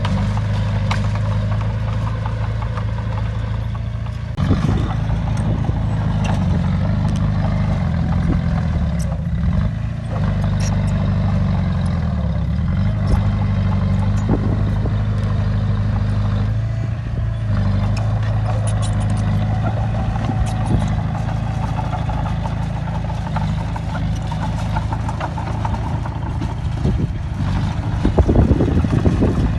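Heavy diesel engine of earthmoving machinery running steadily under load, its pitch sagging and recovering several times, with occasional metallic clanks.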